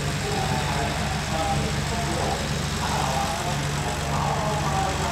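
Small pickup truck's engine running at low speed, a steady low hum, with faint indistinct voices of workers calling now and then.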